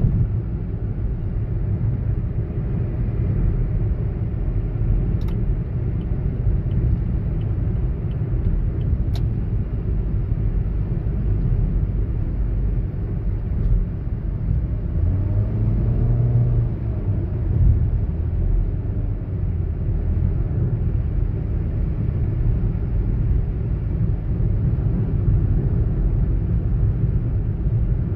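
Steady low rumble of engine and tyre noise heard inside a moving car's cabin. About halfway through, a brief pitched hum rises and falls over the rumble.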